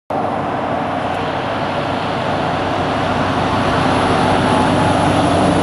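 Loaded Scania timber truck driving along a snowy road: a steady engine hum with tyre and road noise, growing slightly louder as it approaches.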